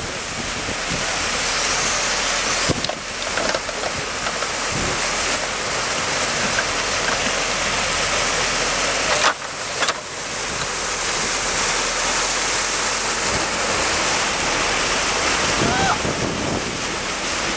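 Muddy pond water rushing steadily through a freshly dug breach in an earthen dam and pouring down into the trench below, with the Case 580 Super L backhoe's diesel engine running underneath. The rush dips briefly twice, about three and nine seconds in.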